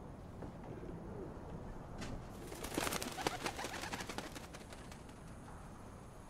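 Pigeons cooing softly, with a run of crunching footsteps on broken plaster and rubble about two to four seconds in.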